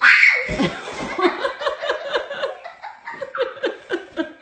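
Laughter in quick repeated bursts, starting with a sudden loud outburst. A low thud about half a second in is a child falling onto a padded balance beam and mat.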